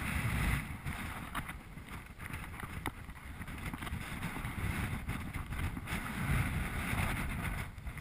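Wind buffeting the microphone in uneven gusts of low rumble, with a few faint clicks.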